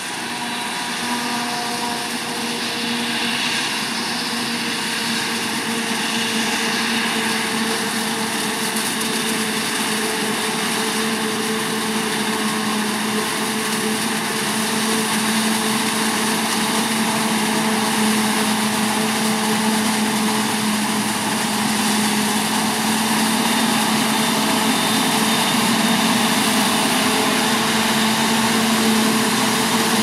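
Claas Jaguar 970 self-propelled forage harvester working flat out, chopping maize, with a John Deere tractor and trailer running alongside: a steady, unbroken engine drone with a chopping hiss over it, growing gradually louder as the machines come closer.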